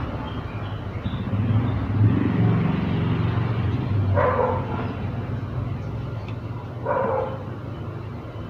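A low, steady engine rumble from a passing motor vehicle, easing off after the middle, with a dog barking twice, about four and seven seconds in.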